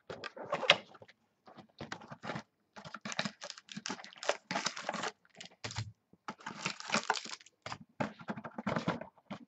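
Hands opening a cardboard football trading-card box: irregular rustling, scraping and clicking of card stock as the flip-top lid is worked open, with a sharp snap just under a second in.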